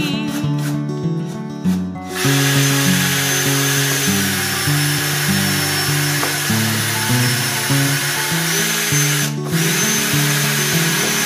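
Cordless drill with a step drill bit boring through a plastic door frame, starting about two seconds in and running steadily with a brief stop near the end, over background music with a stepping bass line.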